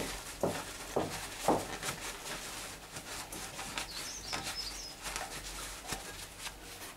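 A cloth rag wiping oil off the underside of a car's oil pan, next to the drain plug: short rubbing strokes about twice a second, then fainter rubbing.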